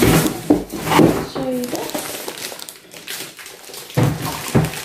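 Thin plastic packaging bags crinkling and rustling as plastic-wrapped toy house pieces are handled and pulled from their box. There are a couple of soft thumps about four seconds in as pieces are set down on the table.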